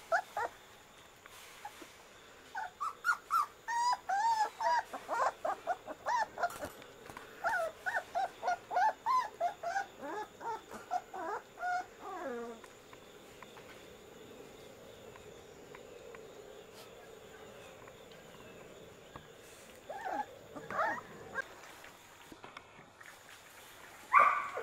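English setter puppies whimpering and whining in a rapid string of short, high cries lasting about ten seconds. After a lull come a few more cries and one louder yelp near the end.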